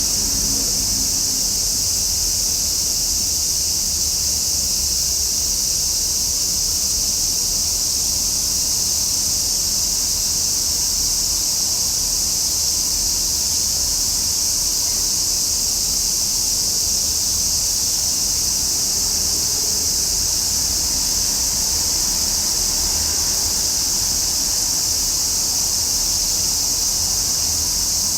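A chorus of cicadas singing in a steady, unbroken high-pitched drone, with a low rumble underneath.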